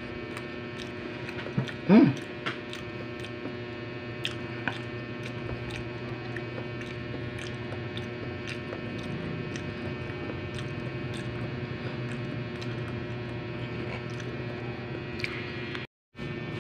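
A person chewing and biting pizza, with scattered small clicks, over a steady electrical hum. A short voiced sound comes about two seconds in, and the sound drops out briefly near the end.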